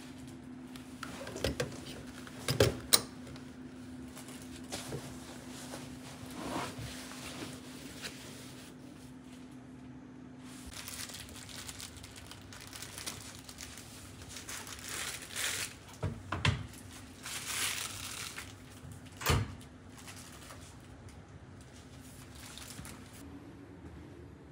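Rustling and handling noises with several sharp knocks, the loudest two close together about three seconds in, over a steady low hum that stops about halfway through.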